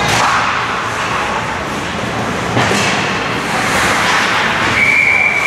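Ice hockey play in an arena: a steady din of skates and the rink's echo, with sharp puck or stick knocks at the start and about two and a half seconds in. A steady high tone, like a whistle, comes in near the end.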